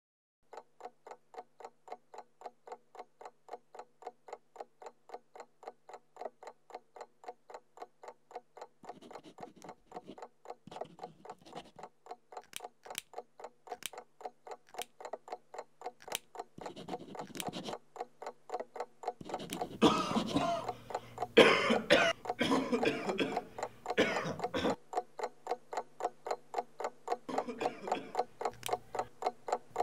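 A clock ticking steadily and evenly, getting louder as it goes. From about nine seconds in, bursts of harsh noise and a low hum come in over it, loudest around twenty to twenty-four seconds in.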